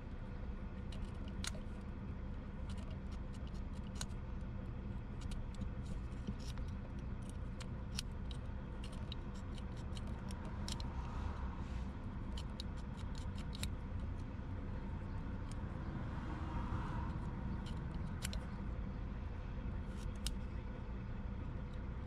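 Light metal clicks and scratching of a diamond-grit terminal-cleaning file worked into a corroded wiring connector's terminals, over a steady low hum.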